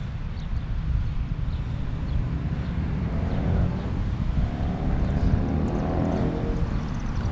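Vehicle engine running under heavy wind rumble on a moving microphone. Its pitch rises and then eases off between about three and seven seconds in.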